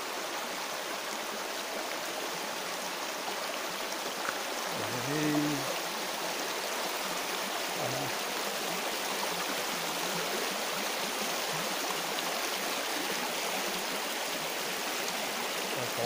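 Shallow mountain river rushing over stones and riffles: a steady, even rush of water. A man's voice makes a brief sound about five seconds in.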